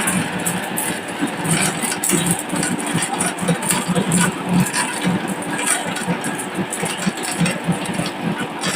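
Marbles rolling and clattering down a wooden track: a dense, irregular stream of clicks and knocks over a continuous rolling rumble.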